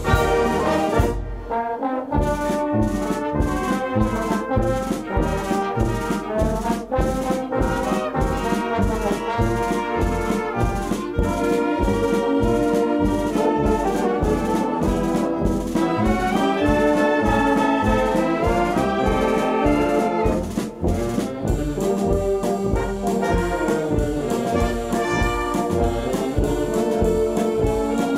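A wind band (Blasorchester) playing an arrangement of show-tune music. The brass carries the melody over a steady beat of about two a second, with two short breaks.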